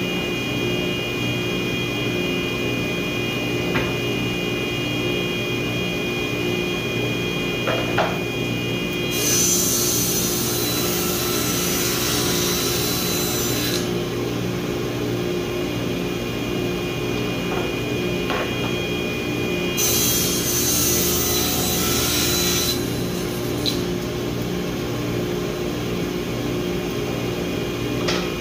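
Table saw running steadily with its motor hum, ripping through a wooden board twice: a cut of about four and a half seconds some nine seconds in, and a shorter one of about three seconds about twenty seconds in. A few light knocks come between the cuts.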